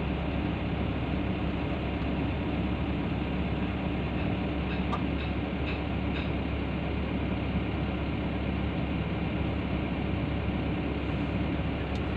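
Komatsu PC160LC-8 excavator's diesel engine idling steadily, with a few faint clinks about five to six seconds in.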